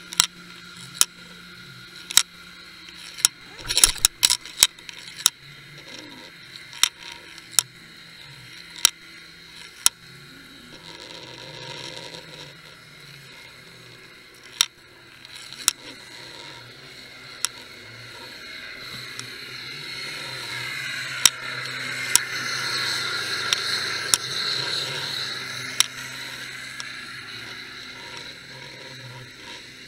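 Underwater sound from a camera riding on a jigged bucktail rig: sharp clicks and knocks, about one a second for the first ten seconds and fewer after. A swell of hiss rises in the second half, peaks, then fades, over a faint steady hum.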